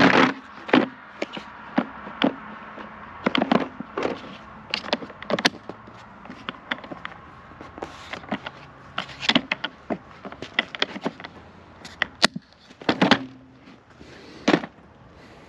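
Irregular clicks, knocks and light clatter of small electrical test tools and their plastic case being handled.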